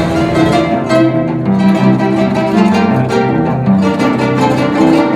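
String music: repeated plucked notes over longer held notes, as from plucked and bowed strings playing together.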